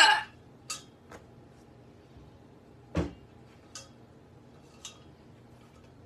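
A sharp hiccup right at the start, followed by a few light clinks and one duller knock about three seconds in from a stainless steel saucepan being handled.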